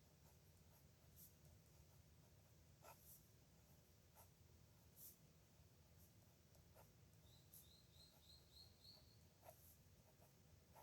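Faint scratching and light ticks of a pen writing on paper, in irregular strokes. A quick run of about six short high chirps comes about two-thirds of the way in.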